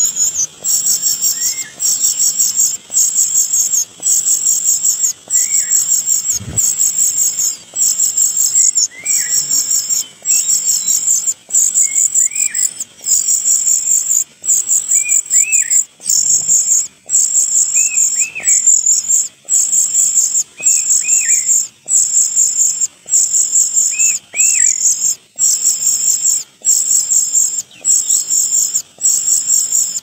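High-pitched insect trilling, broken into regular bursts about once a second, with faint short rising bird chirps now and then, more of them in the second half.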